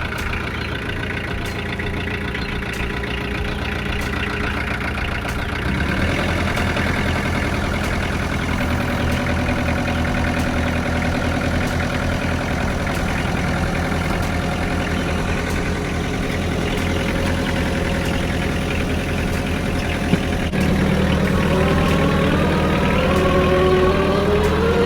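LS farm tractor's diesel engine running just after start-up, stepping up in loudness about six seconds in and again near twenty seconds, with a rising whine near the end.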